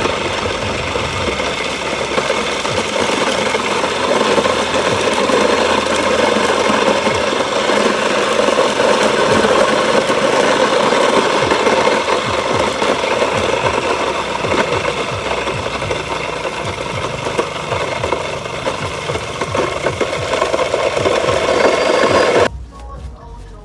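Electric grain mill running, its motor driving the grinding head by a belt while grain is fed through the hopper and ground: a steady, dense grinding rattle. It cuts off suddenly near the end.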